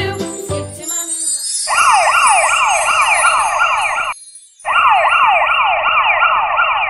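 Emergency-vehicle siren sound effect: fast rising sweeps, each dropping back sharply, about three a second. It plays in two stretches with a short break about four seconds in. Before it, background music ends within the first second and a sparkling chime sounds.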